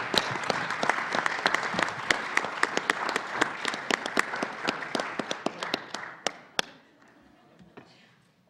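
Audience applauding: many hands clapping together, dying away about six seconds in, with a couple of last single claps.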